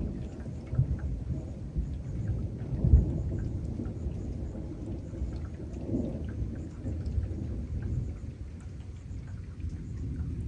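Thunder from a departing thunderstorm rumbling in low rolls, swelling about a second in, again near three seconds (the loudest) and near six seconds, with scattered raindrops ticking.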